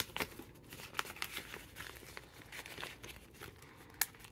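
Clear plastic cash-envelope sleeves in a ring binder rustling and crinkling as they are handled and turned, with scattered small clicks and one sharper click about four seconds in.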